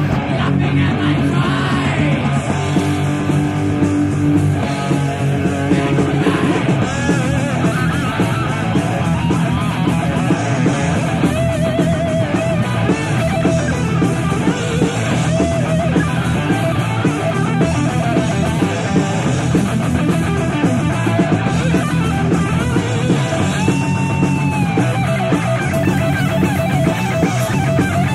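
Rock music with electric guitar, laid over the footage as background music.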